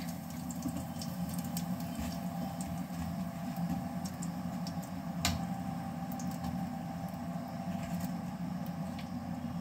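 Cumin and masala frying in hot oil in a pan during tempering, a steady low sizzle with a few sharp clicks of a spoon against the pan, the clearest about five seconds in.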